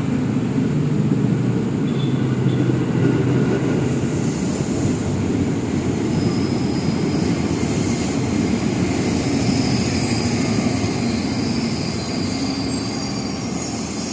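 A train running on the rails, a steady rumble.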